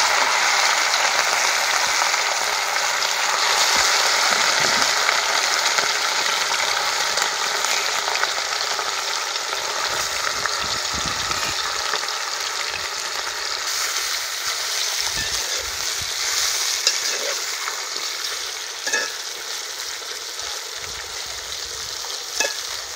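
Chicken pieces deep-frying in hot oil in an aluminium wok: a steady, loud sizzle that is strongest at the start and gradually eases off. In the later part there are a few light clicks of a metal spoon against the pan.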